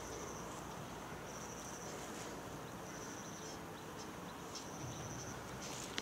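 Cricket chirping in short high-pitched trills, about one every one and a half seconds, over a faint steady background hiss.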